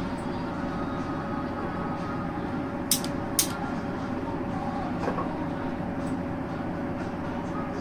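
A steady machine hum with a held tone, and two sharp clicks about half a second apart about three seconds in.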